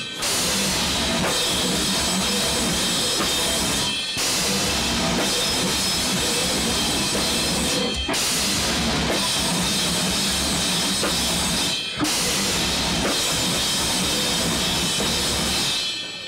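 Death metal band playing live at full volume, drum kit loudest up front, with a dense wall of distorted guitars and bass. The band stops short about every four seconds, and the song cuts off near the end.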